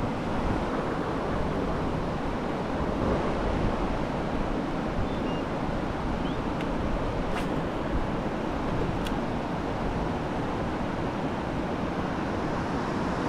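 River rapids rushing steadily over rocks, with a couple of faint clicks partway through.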